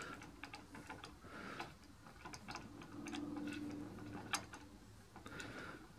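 Faint, irregular ticks and clicks of a hand tap being turned in small increments in a tap wrench, cutting a thread in duplex stainless steel that is grabbing and gummy.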